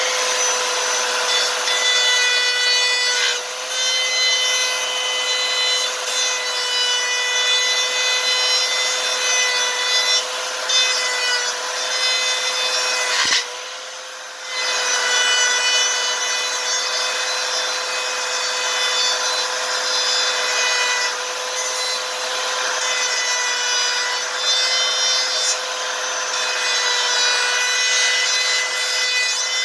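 Electric jigsaw cutting out a speaker opening, its motor whining at a steady pitch over the rasp of the blade. About 13 seconds in it stops with a click and starts again about a second later.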